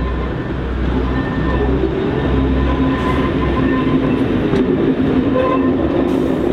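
First-generation diesel multiple unit approaching slowly, its underfloor diesel engines giving a steady drone that grows louder as it draws near, with a few rail clicks near the end.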